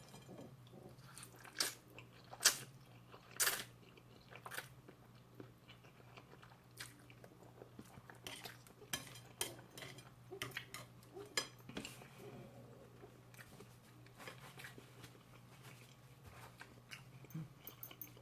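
A person eating crunchy food close to the microphone. Four loud, sharp crunching bites come in the first few seconds, followed by quieter chewing with small crackles and clicks.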